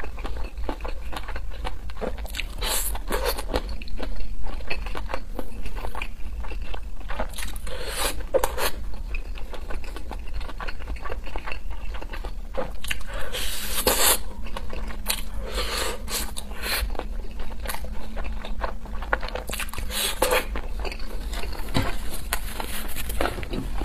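A person biting pieces off sauce-glazed fried skewers and chewing them, a run of wet mouth clicks with a louder bite every few seconds, the loudest about fourteen seconds in. A steady low hum lies underneath.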